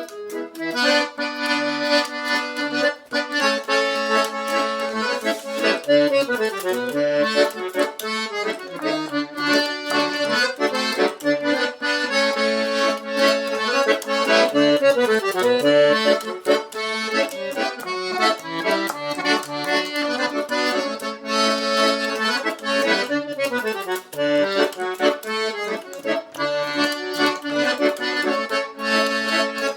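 Instrumental vanera introduction led by accordion: a running melody over a bass line, in a lively, steady rhythm.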